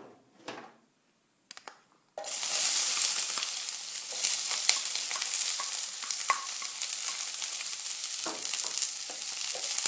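Sliced onions hitting hot oil in a frying pan and sizzling. The sizzle starts suddenly about two seconds in, after a few faint knocks, then carries on loud and steady with scattered small pops.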